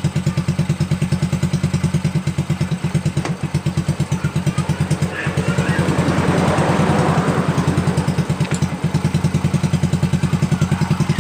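Honda Supra Fit's single-cylinder four-stroke engine idling smoothly with an even beat, rising briefly about halfway through before settling back. The clattering (klatak-klatak) it made before is gone, after the broken cam chain tensioner was fixed.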